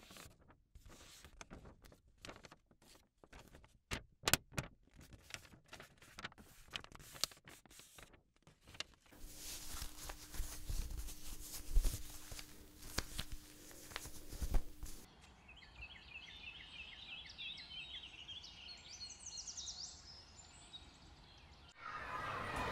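Scattered soft taps and clicks, then a few seconds of faint steady hum with a couple of thuds, then small birds chirping over quiet outdoor ambience in the last third.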